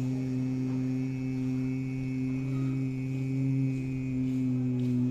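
A person's low, steady closed-mouth hum of bhramari pranayama (bee breath), held on one pitch through a long out-breath.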